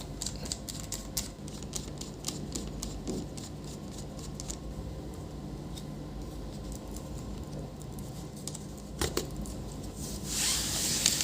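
Scattered small clicks and taps of laptop plastic parts being handled and opened during disassembly, with a short scraping rustle near the end, over a low steady hum.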